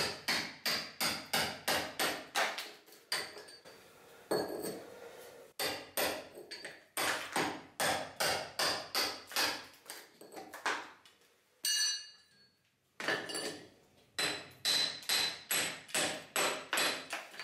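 Lump hammer striking a hand chisel, chipping render off brickwork in runs of quick blows, about three a second, with short pauses between runs.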